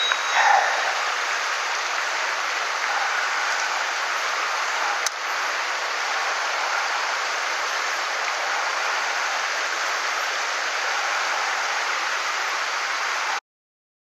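Shallow mountain stream running over rocks: a steady rush of water, with a single click about five seconds in. It cuts off suddenly just before the end.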